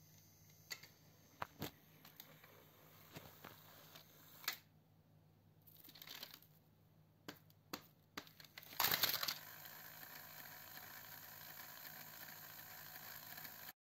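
Battery-powered Thomas & Friends toy trains, Thomas and Charlie, running on plastic track with scattered small plastic clicks and knocks, then a loud clatter about nine seconds in as they tumble off the track onto the mat. A steady motor whir follows, the toy's motor still running with the engine on its side.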